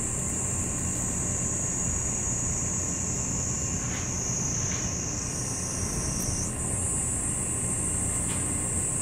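Steady high-pitched buzz of cicadas, shifting slightly in pitch about five and six seconds in, over a constant low rumble.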